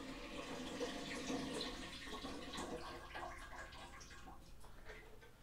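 Kitchen tap running water into the sink, stopping about four seconds in.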